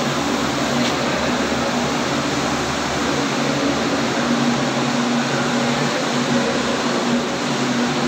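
Hydropower turbine and generator set running: a steady rushing whir with a constant low hum underneath, loud and unchanging.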